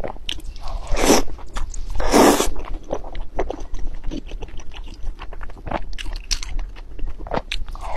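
A person eating noodles up close: two loud slurps about one and two seconds in, then steady chewing with many small sharp clicks.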